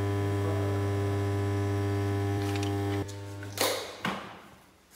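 A workshop electric motor hums steadily with a strong low mains-type tone and cuts off abruptly about three seconds in. Two short hissing bursts follow.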